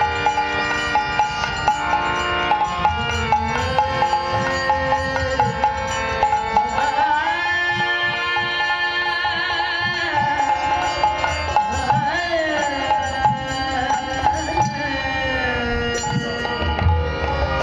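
Bengali devotional kirtan music: a melody of long held and gliding notes, wavering near the middle, over a steady hand-drum rhythm with regular light percussive ticks.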